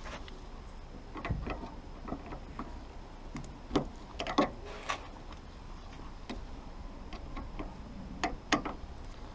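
Irregular clicks and light knocks of tools and parts being handled on a car's soft-top frame, with the sharpest clicks in the middle and again near the end.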